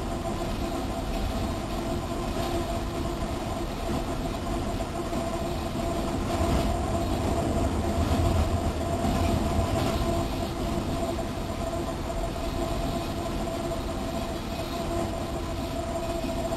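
Union Pacific freight train rolling at about 30 mph with its locomotive throttle at idle: a steady rumble of wheels on rail with a steady hum over it, a little louder about halfway through.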